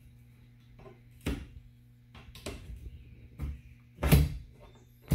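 A few sharp knocks and clinks of hand-worked hardware, the loudest about four seconds in, as T-nuts and washers are fitted along a roof rack rail. A steady low hum runs underneath.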